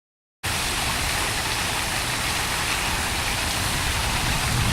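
Steady rushing noise with no clear pitch or rhythm, starting abruptly about half a second in.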